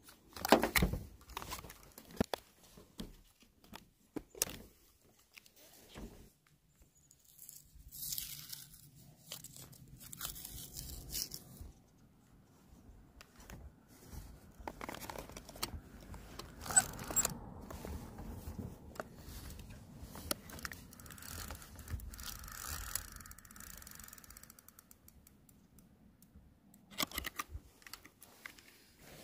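Handling noise from gear being sorted and readied: sharp clicks and knocks in the first few seconds, then stretches of rustling and scraping, with a loud click about seventeen seconds in and more clicks near the end.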